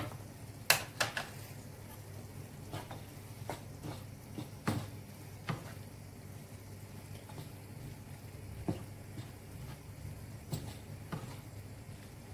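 Wooden spatula stirring minced beef and chopped tomatoes in a non-stick frying pan, scraping and knocking against the pan at irregular intervals, the loudest knock about a second in. A steady low hum runs underneath.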